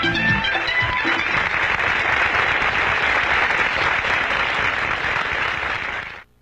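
Audience applause in a circus ring. The music ends about half a second in, the clapping continues steadily, and then it cuts off abruptly near the end.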